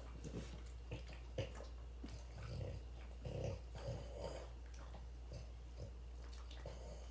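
French bulldogs eating strands of cooked spaghetti from a hand: soft, irregular chewing and mouth noises, busiest in the middle.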